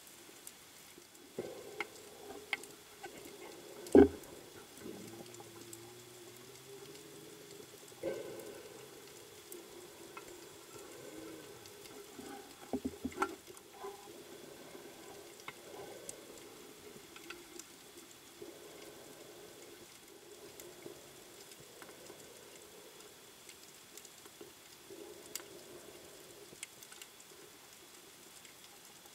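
Underwater reef ambience heard through a camera housing: a faint continuous crackle of tiny clicks, typical of snapping shrimp, with irregular lower rushing swells from the diver's scuba breathing. A sharp knock about four seconds in, the loudest sound, and a few quicker knocks around thirteen seconds.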